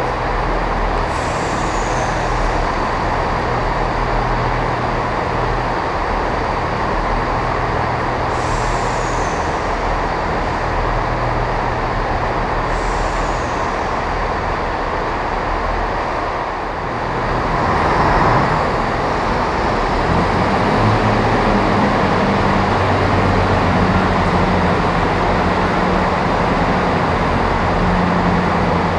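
Diesel trains idling at the buffer stops: a steady engine drone with a low hum. Partway through the engine note changes and the sound gets a little louder.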